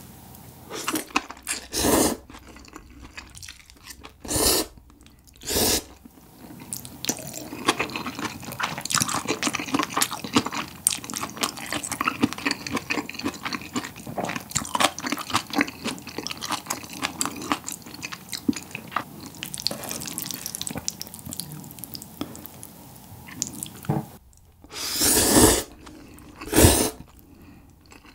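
A person slurping up chewy, sauced ramen-style jjolmyeon noodles in loud, short gulps: three slurps in the first six seconds and two more near the end. In between, a long stretch of wet, close-up chewing with many small clicks.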